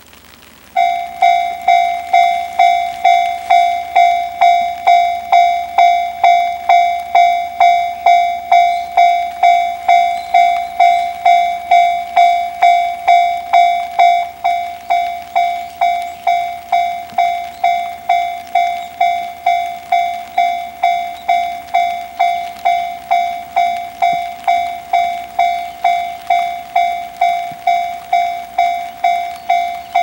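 Japanese level-crossing warning bell, an electronic ding repeating steadily about twice a second, starting about a second in and a little quieter from about halfway: the crossing is warning that a train is approaching.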